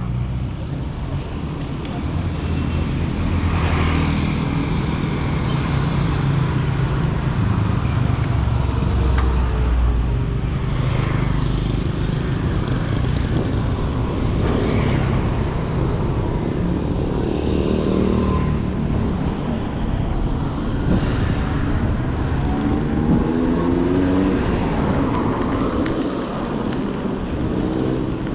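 Road traffic: a steady low rumble of tyres and engines, with vehicles passing and an engine note rising several times near the end.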